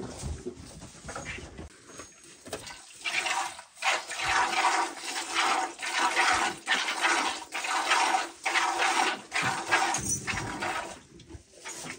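Cow being hand-milked into a plastic bucket: streams of milk squirt into the pail in a steady rhythm, starting about three seconds in.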